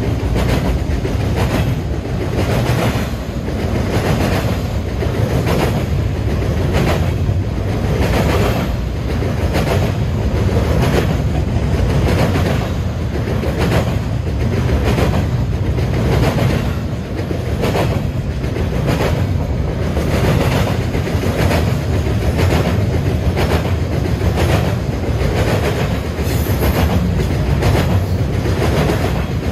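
Double-stack intermodal freight train's well cars rolling past close by: a steady rumble of steel wheels on rail, with a repeated clickety-clack as the wheel sets cross rail joints.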